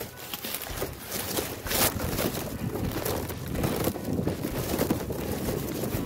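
Wind buffeting the microphone of a phone hanging from a kite, with scraping and rustling as the phone drags across dry straw stubble before being lifted; one louder rustle about two seconds in.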